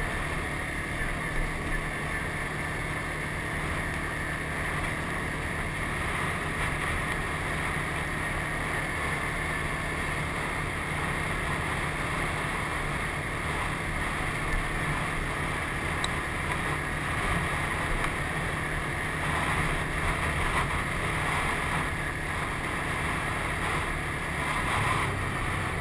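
Sport ATV engine running steadily while riding along a dirt road, with wind noise on the camera microphone.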